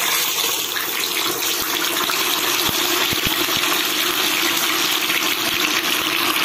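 A bhagar (barnyard millet) vada deep-frying in hot oil in a kadhai: steady, loud sizzling and bubbling of oil around the freshly dropped-in batter.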